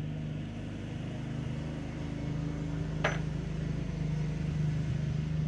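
Steady low machine hum, with a single sharp click about three seconds in as a bolt for the engine stand's wheel is handled.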